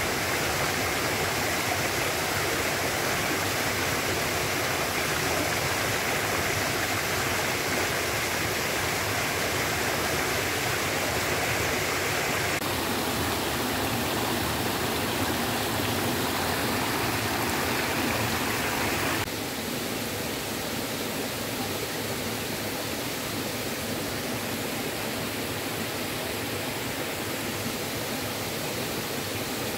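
Steady rushing of flowing water, a continuous wash with no distinct events. It changes character abruptly about thirteen seconds in and drops a little in level about nineteen seconds in.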